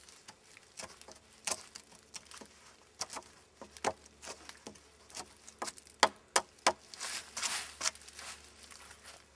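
Fixed-blade knife cutting into a wooden pole: irregular sharp clicks and taps of the blade biting the wood, with a longer scraping stroke about seven seconds in.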